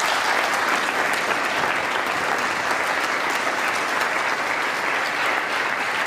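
Members of Congress applauding: steady clapping from a large audience of many hands.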